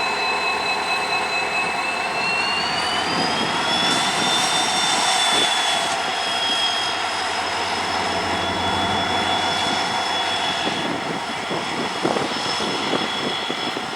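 Express train passing at speed: steady rushing rail noise with a high whine that rises in pitch a few seconds in and then holds, and a few sharp knocks near the end.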